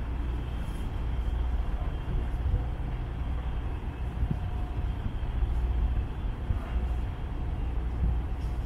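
Steady low rumble of outdoor city waterfront ambience, unsteady in level, with no distinct events.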